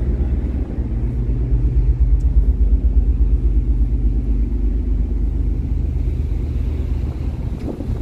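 Heavy, steady low rumble of wind buffeting the microphone on the open deck of a ship under way at sea.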